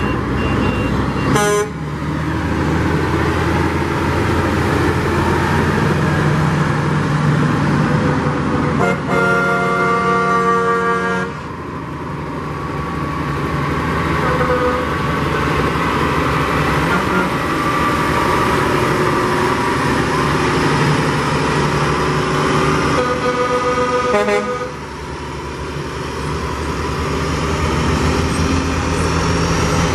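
Large parade vehicles, including a heavy diesel truck, rolling past with a steady engine rumble. Horns sound over it: a short toot about a second and a half in, a long blast of about two seconds around a third of the way through, and another blast about three quarters of the way through.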